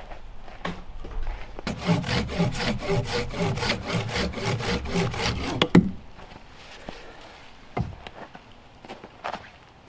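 Silky BigBoy folding pull-saw cutting through a branch in quick, even strokes for about four seconds, ending in a loud crack. A couple of faint wooden knocks follow.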